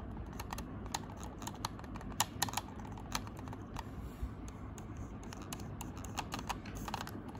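Alcatroz Stealth S silent mouse's buttons being clicked over and over, many quiet, muffled clicks at an uneven pace.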